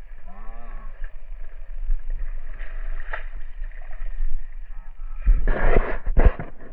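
Shallow tide-pool water sloshing and splashing close to the camera over a steady low rumble, with heavier splashes from about five seconds in.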